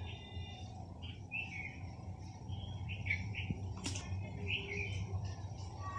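Small birds chirping in short calls repeated every second or so, over a steady low background noise. About four seconds in there is one brief sharp splash: a grass carp snapping at a banana leaf at the water's surface.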